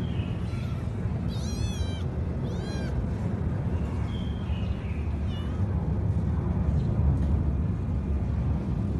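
Cat mewing: two high, wavering mews about a second and a half and two and a half seconds in, then a few shorter, fainter ones, over a steady low rumble.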